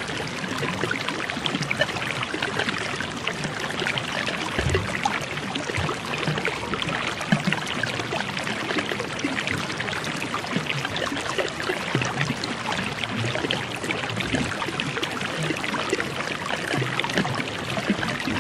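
Steady sound of running water from a stream, an even rushing with fine trickling and no letup.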